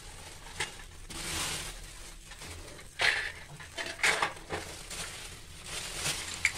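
Stainless-steel pressure-cooker lid being handled and lifted off the cooker, with several sharp metal clinks and knocks from about three seconds in.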